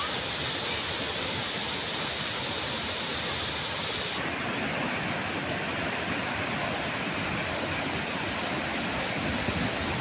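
Steady rushing of the Charpa waterfall and the river below it in monsoon flood, with fast, muddy rapids. The rush shifts slightly in tone about four seconds in.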